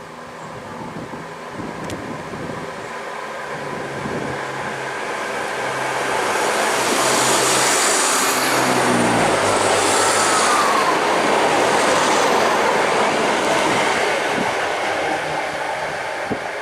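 ScotRail Class 170 Turbostar diesel multiple unit pulling away and passing close by, its underfloor diesel engines and wheel noise growing louder, peaking in the middle and easing toward the end. The engine note drops in pitch partway through.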